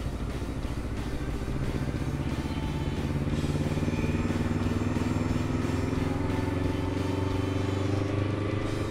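Motorcycle engine pulling the bike up to speed, its note rising slowly and steadily as it accelerates.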